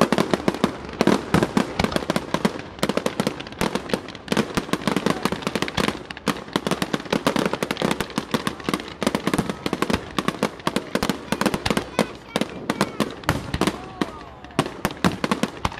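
Fireworks going off at close range: a dense, unbroken barrage of sharp bangs and crackles from bursting aerial shells, many reports a second.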